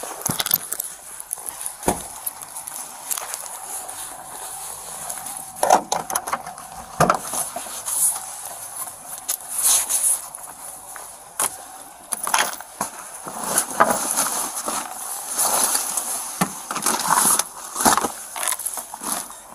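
Handling noise close to a body-worn camera: clothing rustle with scattered knocks and clicks as things are moved about in a car's open cargo area.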